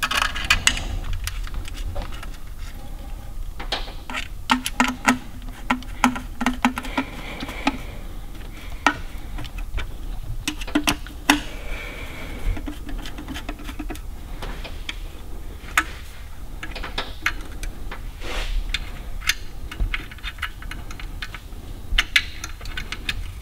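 Screwdriver and small metal and plastic parts clicking and tapping while the ignition coil and cover on a GM HEI distributor are unscrewed and handled, with irregular sharp clicks throughout and a short buzzy rattle a few seconds in.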